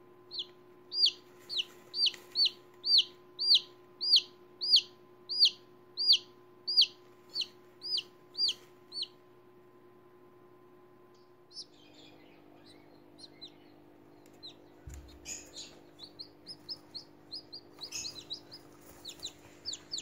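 Baby chicken chicks peeping: a regular run of loud, high, falling peeps, a little under two a second, for about nine seconds. After a short pause, softer and quicker peeps return, with a few light knocks.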